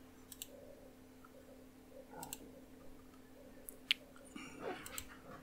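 Several computer mouse button clicks, some in quick pairs, the sharpest about four seconds in, over a faint steady hum.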